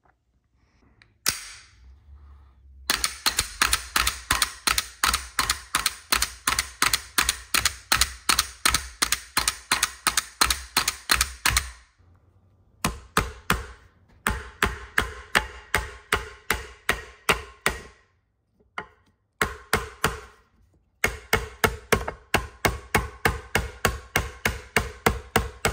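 The top of a Lead & Steel Pandora pistol red dot sight, mounted on the pistol, hammering a nail into a wooden block: rapid, sharp knocks, about four a second, in runs of several seconds with short pauses between them.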